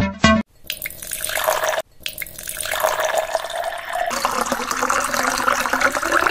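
Milk poured in a steady stream from a jug into a large non-stick pot, splashing and gurgling as the pot fills, with a short break about two seconds in. A snatch of music cuts off about half a second in.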